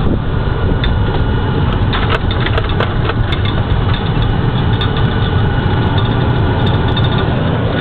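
MRAP armoured truck's diesel engine and road noise heard from the open gunner's turret while driving: a steady loud rumble with scattered short clicks and rattles.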